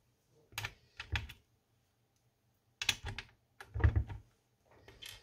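Airsoft M4 upper and lower receivers being handled and fitted back together: short clusters of hard clicks and clacks, about five bursts with pauses between.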